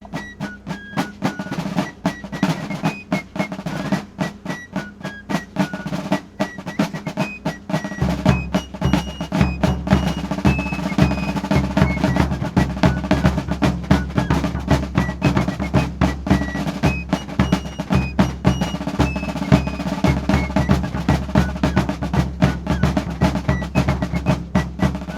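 Civil War–themed music: fast, dense drum strokes under a high melody of short notes, with a deep, heavier drum beat coming in about eight seconds in.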